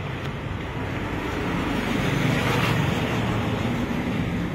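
Road traffic on a city street: a passing vehicle's engine and tyre noise swells to its loudest about halfway through, then eases off.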